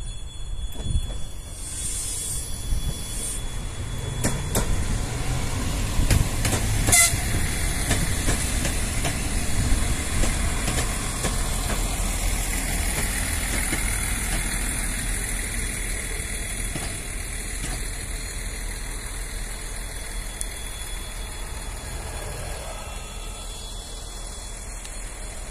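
RA2 and RA1 diesel railbuses coupled together, passing close by. Their engines run as the wheels clatter over the rails, loudest a few seconds in, then slowly fading as the cars go by.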